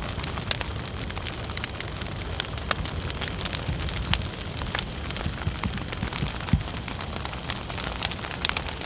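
Large brush-pile bonfire burning hard: a steady rush of flames with frequent sharp crackles and pops from the burning branches, the loudest pop about six and a half seconds in.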